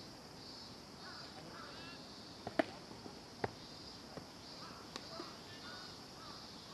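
Steady high insect chorus with faint distant calls, broken by a few sharp knocks. The loudest is a single pop about two and a half seconds in, a pitched baseball smacking into the catcher's mitt.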